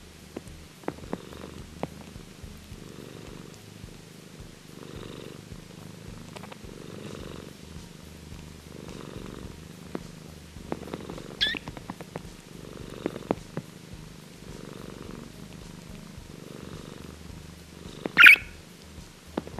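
Scottish Straight cat purring steadily, the purr swelling about once a second. A budgerigar gives two short, sharp chirps, a fainter one just past the middle and a louder one near the end.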